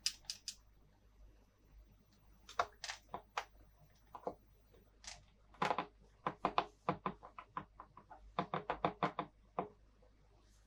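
Plastic toy playset pieces being handled: a string of light taps and clicks, some in quick runs of several a second.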